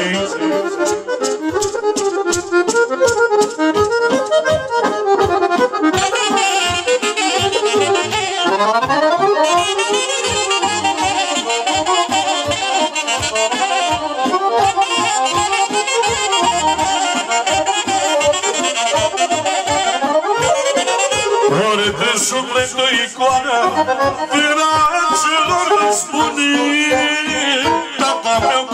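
Instrumental music with a quick accordion melody over a steady beat.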